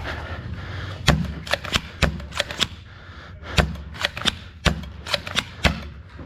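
Foam-dart blasters firing and darts smacking into surfaces: about a dozen sharp pops at uneven spacing, some in quick pairs, the loudest about a second in.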